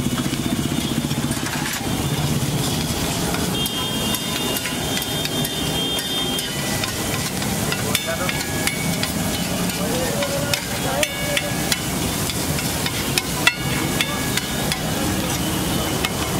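Egg and masala mixture sizzling on a flat iron griddle, with a metal spatula scraping and tapping against the griddle as it is chopped and spread; the taps come more often in the second half.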